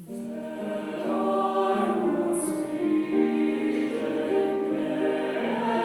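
A high school mixed choir singing in harmony, entering on a cue and holding sustained chords that change every second or so, growing louder about a second in.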